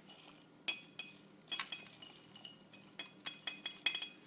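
Light, irregular clinks of a utensil against a glass mason jar, over a dozen taps with short ringing, as salt is added to the jar of onions.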